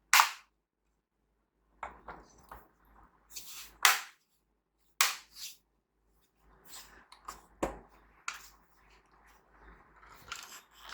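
Plastic clips of an ASUS VivoBook Max keyboard top case snapping into place as it is pressed down around its edges. There are sharp single clicks, the loudest near the start and about four seconds in, then softer clicks and rustling of hands on the plastic.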